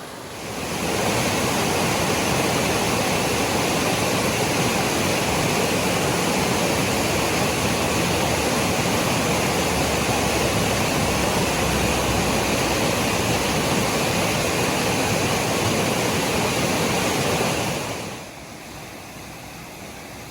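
Steady rushing water, an even roar with no surges. It fades in about half a second in and fades out near the end.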